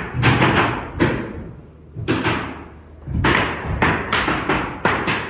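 Repeated thuds and knocks in irregular clusters, several a second, each with a short echo in the empty framed house.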